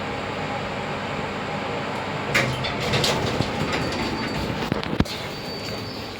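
Passenger lift running with a steady mechanical rumble. From about two seconds in come rattling and clicks, with one sharp click near five seconds.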